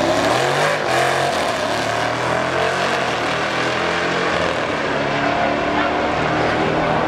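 Two V8 drag cars, a supercharged Jeep Grand Cherokee Trackhawk and a twin-turbo LSX Chevrolet Impala, launching at full throttle and accelerating down the strip. Their engine notes climb in pitch and drop back at each gear change.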